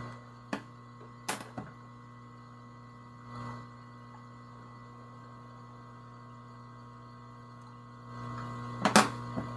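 Steady electrical mains hum, with a few light clicks and taps from small hand tools being handled over the laptop: one about half a second in, a couple around a second and a half, and a sharper pair near the end.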